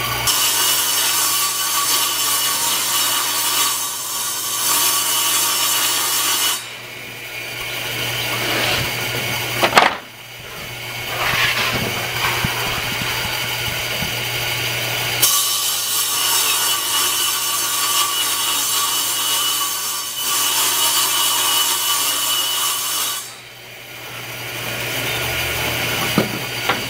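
Table saw ripping 3/4-inch plywood into long strips: the blade's loud cutting noise comes in spells several seconds long, falling back to the motor's steady running between cuts, with a sharp knock about ten seconds in.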